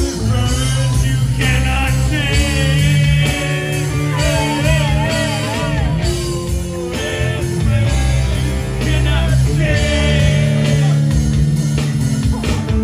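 Live rock band playing amplified through a PA: electric guitars, bass and a vocalist singing into a microphone, with a lead line that wavers and bends in pitch over a steady low bass.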